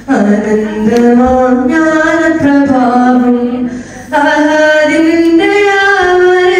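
A young man singing a Malayalam madh (Islamic praise song) unaccompanied into a handheld microphone, holding long notes that bend slowly in pitch, with a short pause for breath about four seconds in.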